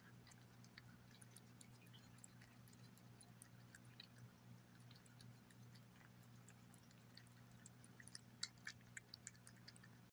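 A domestic cat licking and chewing wet chicken paté off a glass plate: quick, faint wet clicks of tongue and teeth. They come faster and louder near the end.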